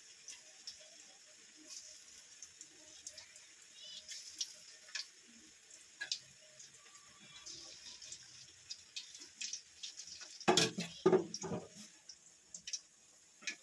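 Battered doddapatre and spinach leaf fritters (bajji) deep-frying in hot oil, a steady sizzle with scattered small crackles. Three loud knocks come about ten and a half seconds in.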